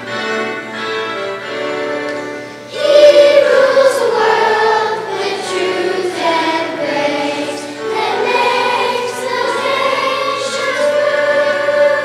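Children's choir singing with accompaniment. The accompaniment plays alone at first, and the choir comes in loudly about three seconds in.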